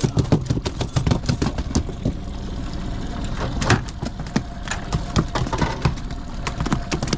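A freshly landed halibut thrashing on the boat deck and against the landing net: a run of irregular thumps and knocks, over the steady drone of an idling outboard motor.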